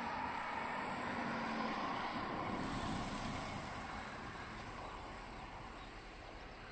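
A distant passing train, its running noise and hum fading away as it recedes.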